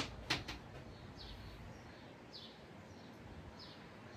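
A stepladder knocking and clanking as it is moved, three sharp knocks in the first half second. After that, a faint short falling high chirp repeats about every second and a quarter.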